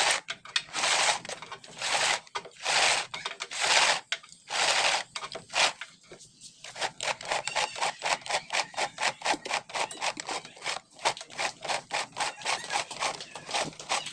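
Homemade plastic-jug cable reel being turned by hand: plastic rubbing and scraping in several short strokes, then a quick steady run of clicks, several a second, from about halfway in as the cable is wound on.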